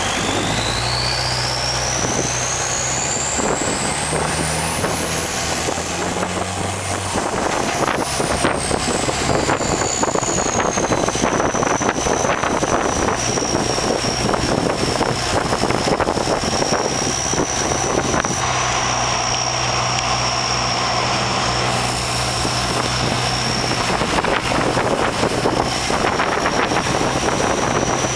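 Motorboat engine running steadily under way, with a high whine that climbs for several seconds, drops back and then holds a steady pitch.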